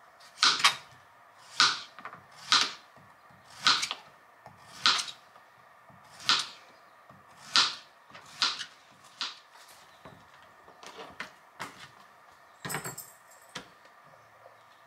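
Kitchen knife slicing through a yellow squash and knocking on a plastic cutting board, one cut about every second, then lighter, quicker taps and a clatter near the end.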